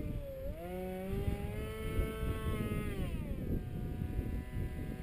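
Radio-controlled Su-37 model jet flying past: a high whine from its drive rises in pitch about half a second in, holds, then slides down about three seconds in and settles lower. Wind rumbles on the microphone underneath.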